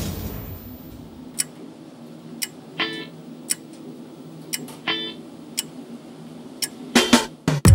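Slow, even ticking of a clock sound effect, about one tick a second, with two short plucked guitar notes over it. Near the end come a few louder hits as the film's guitar music starts.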